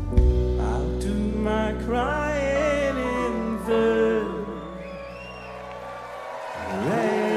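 Live pop-rock band with drums, bass and keyboards holding a chord under a male lead singer's long, wavering wordless vocal line near the song's end. The bass and drums drop out about six seconds in, and the audience starts cheering and whooping near the end.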